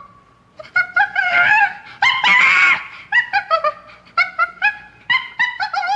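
Chimpanzee calls: a string of short, rising hoots and cries, with a longer wavering cry just after one second in and a harsher scream a little after two seconds.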